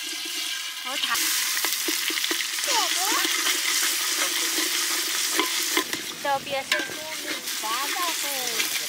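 Ginger-garlic paste frying in hot oil in an aluminium pot, sizzling steadily while a metal spoon stirs it, clicking and scraping against the pot. The sizzle gets louder about a second in.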